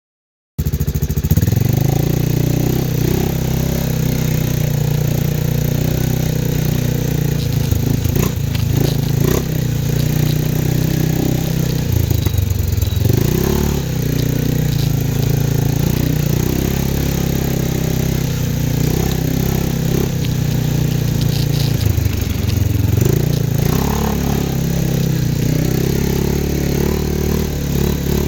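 CFMOTO 500 ATV engine running steadily, its pitch dipping and rising again a couple of times as the throttle changes.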